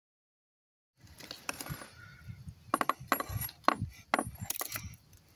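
An old hammer's iron head knocking and scraping on a concrete slab. It starts about a second in as a string of sharp clinks and knocks, several a second, with light scraping between them.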